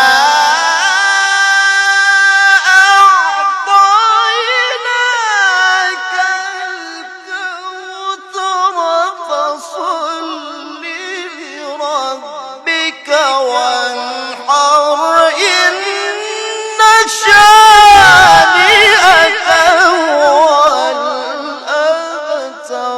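A solo voice chanting a Quranic recitation in melodic, ornamented style, with long phrases held on a single breath. The pitch climbs to a loud, high passage about two-thirds of the way through before settling lower again.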